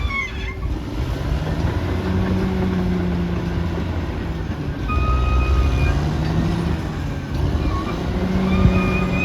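Caterpillar D6R XL bulldozer's diesel engine running under working load, its revs rising and falling, with a high steady whine about five seconds in and again near the end.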